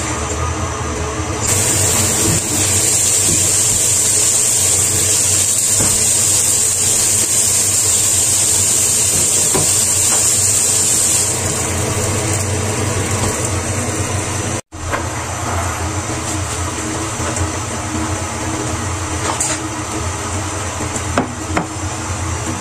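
A kitchen tap runs into a steel sink with a steady hiss for about ten seconds, then stops. A steady low hum carries on under it and afterwards.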